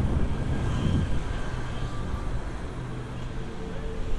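Busy city street ambience: a steady low rumble of passing traffic, heaviest in the first second, with a rushing hiss over it.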